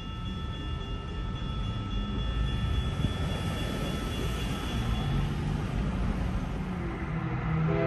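Freight train cars rolling past with a steady low rumble. A thin, high ringing tone runs over it for the first few seconds and fades out about halfway through.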